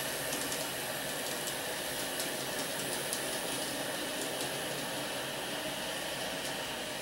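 N scale model freight train running along the track: a steady mechanical hum with faint, irregular light clicks.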